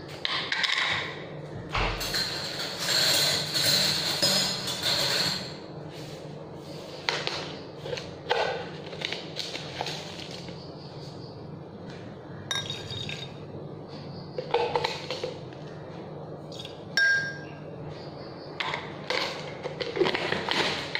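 Kitchen handling sounds: a plastic jar being opened and turned over, with a spoon clinking and knocking against it now and then. There is a longer rattling stretch a couple of seconds in and a short ringing clink a few seconds from the end.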